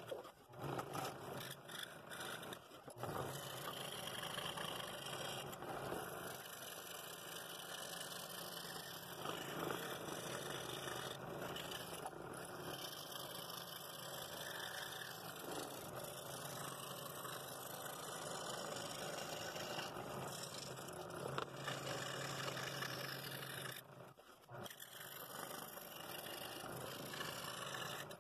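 Scroll saw running steadily, its fine blade cutting fretwork through thin walnut, with a low motor hum under the scraping of the blade. The sound briefly drops about three seconds in and again near the end.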